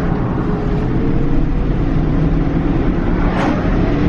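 1997 BMW 740iL's 4.4-litre V8 at hard acceleration in first gear, the engine note climbing steadily in pitch and falling away right at the end.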